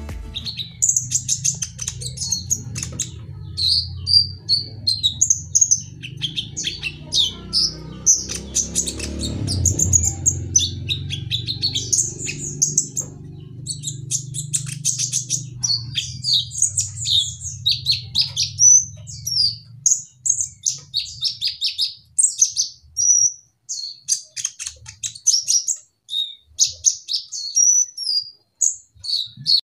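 Male kolibri ninja (copper-throated sunbird) singing in full song: a continuous run of rapid, high chirping and trilling phrases. A low hum sits under it until about two-thirds of the way through.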